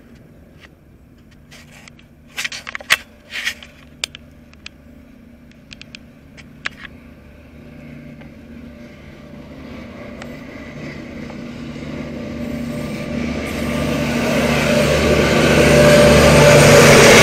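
KiwiRail DL-class diesel-electric locomotives hauling a freight train approach and pass close by, their engine drone and wheel noise growing steadily louder through the second half. A few sharp clicks sound between about two and four seconds in.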